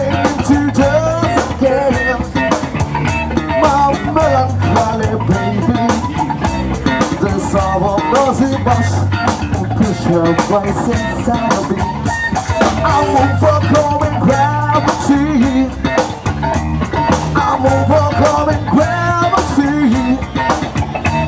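Live rock band playing: electric guitars and a drum kit, with a male lead vocal.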